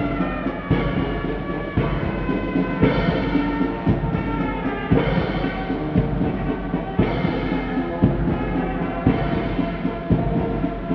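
Military band playing slow ceremonial music: held brass notes that change about once a second, with drum beats.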